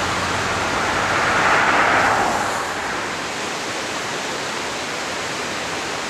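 Steady rushing of a fast mountain creek's rapids, with a louder whoosh that fades away about two and a half seconds in.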